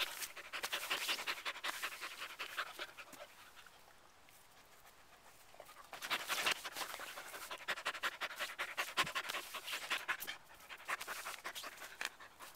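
A dog panting in quick breaths right at the microphone, in two spells with a pause of about two seconds in between.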